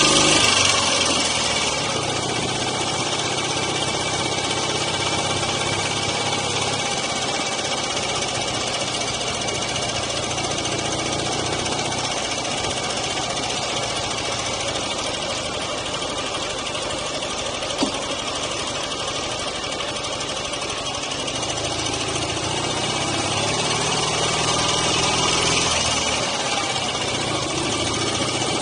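Dnepr MT9 sidecar motorcycle's flat-twin engine running on the road with wind rushing over the microphone. It eases off just after the start, then climbs in pitch as it speeds up again a little past the middle. One sharp click about two-thirds of the way through.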